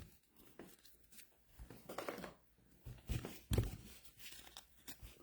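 Trading cards being handled: a few faint, short rustles and soft clicks, the clearest about two, three and three and a half seconds in.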